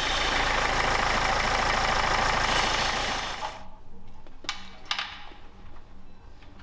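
Renault diesel engine running at idle, freshly filled with new oil after a flush, with a rapid, even pulsing beat. About three and a half seconds in it gives way to a faint low hum and a couple of light clicks.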